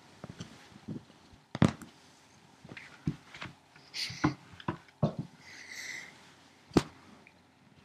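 Handling noise from someone shifting about on a couch right beside a laptop's built-in microphone: fabric rustling and a run of irregular bumps and knocks as the laptop is jostled. Two sharp knocks stand out, one about a second and a half in and one near the end.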